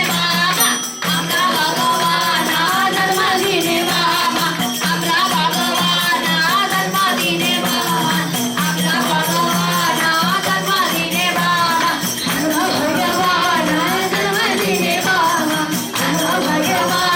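A Hindu devotional bhajan sung by a group of voices over a steady percussion beat, with low notes held underneath.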